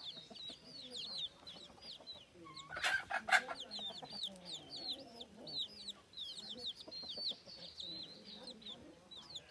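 Chicks peeping continuously in quick, high calls while the mother hen clucks low to them. A brief, louder squawk comes about three seconds in.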